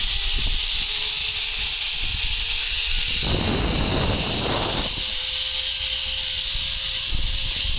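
Zip wire trolley running along its steel cable, a steady hiss with wind rumbling on the microphone; the rush grows louder for a couple of seconds about three seconds in, and a faint steady whine runs through the second half.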